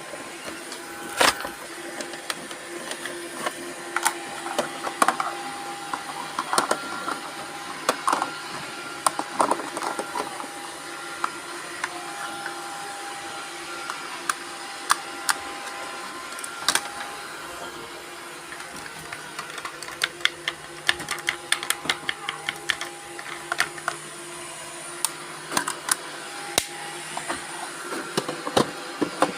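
Several robot vacuum cleaners running at once: a steady motor hum with whining tones that start and stop, and frequent sharp clicks and knocks throughout.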